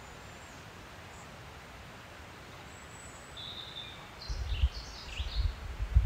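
Open-air background hiss with small birds calling in short, high notes, then from about four seconds in wind buffets the microphone in irregular low gusts that are the loudest sound.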